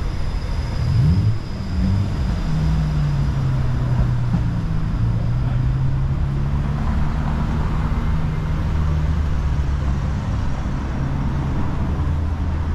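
Downtown street traffic: a vehicle's engine note rises about a second in, then a low engine hum holds steady over the general traffic noise.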